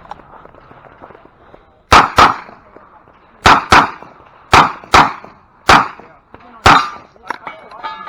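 Revolver fired eight times, mostly in quick pairs about a quarter second apart, with a second or so between pairs.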